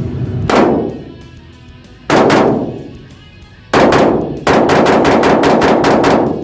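9mm Glock 34 pistol in a conversion-kit chassis being fired: three single shots about a second and a half apart, then a rapid string of about eight shots fired in quick succession near the end.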